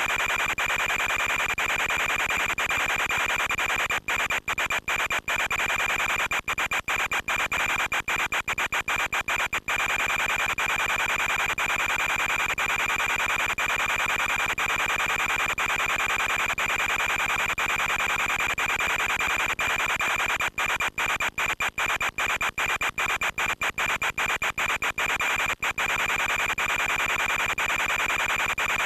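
Steady loud hiss with a constant high-pitched whine from the FPV model aircraft's audio feed, cutting out in many brief dropouts about four to ten seconds in and again around twenty to twenty-six seconds in.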